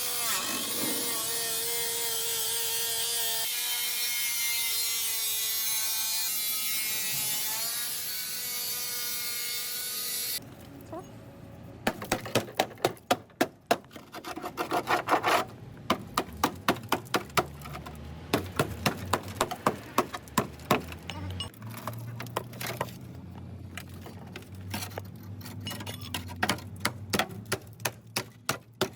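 A power tool works on sheet metal with a loud, continuous whine carrying several pitches. It cuts off abruptly about ten seconds in. After that comes a long run of sharp, regular taps or knocks at about three to four a second.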